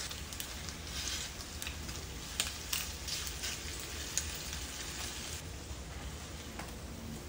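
Thin slices of marinated meat sizzling in a nonstick frying pan, lighter after about five seconds, with a few sharp clicks of tongs against the pan as the slices are turned.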